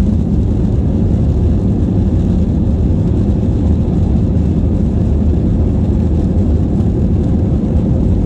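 Steady low rumble inside an Airbus A321's cabin as the jet taxis on the ground, with a faint steady hum running through it.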